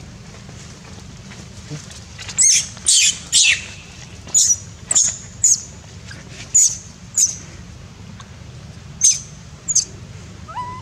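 Baby macaque screaming in distress after being attacked by another monkey: about ten short, shrill, high-pitched screams in irregular groups, starting about two seconds in.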